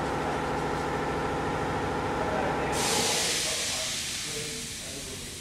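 A steady mechanical hum with many evenly spaced tones. About three seconds in, a sudden loud hiss starts as the hum fades, and the sound then slowly dies down.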